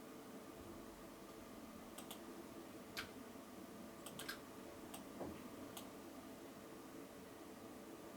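Faint sharp clicks, six or so scattered across a few seconds, with a soft low bump about five seconds in, over a steady low hum.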